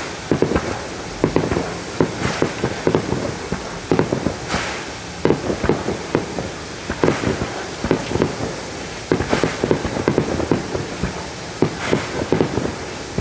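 Aerial fireworks bursting in quick succession: an irregular string of sharp bangs and pops, several a second, with a few louder hissing crackles among them.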